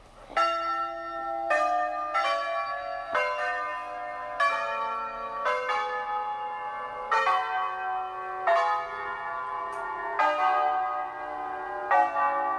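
Tower bells played from inside the bell tower: one note struck after another at about one a second, making a slow tune, with each bell ringing on under the next.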